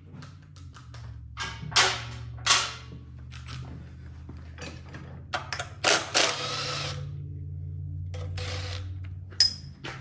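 Tools and metal parts clattering while the shrouding of a Kohler Command twin engine is taken apart: several sharp clanks and short rasping bursts, the loudest about two seconds and six seconds in, over a steady low hum.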